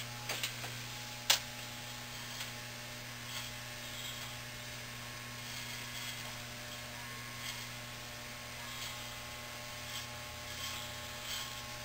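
Corded electric hair clippers running with a low, steady buzz as they are worked along the hairline, with a sharp click about a second in and a few faint ticks after.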